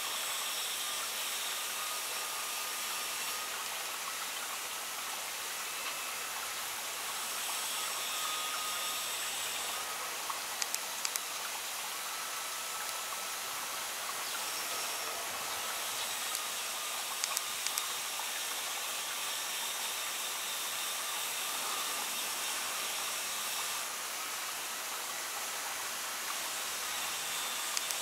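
Steady high-pitched hiss of outdoor ambience, with faint high tones that come and go and a few soft clicks.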